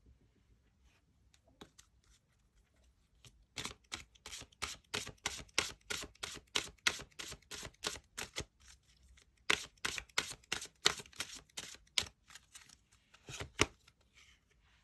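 Tarot cards being shuffled by hand: two quick runs of crisp card snaps, about three or four a second, with a few more near the end.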